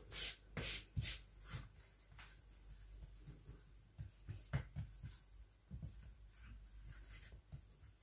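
Hands patting and pressing a ball of soft dough flat on a floured silicone baking mat: a few soft pats in the first second and a half, then quieter rubbing and light taps.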